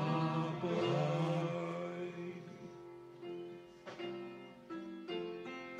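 A small choir and congregation sing the held final notes of a hymn with piano accompaniment, the voices dying away about two seconds in. The piano then plays on alone with a few separate sustained chords.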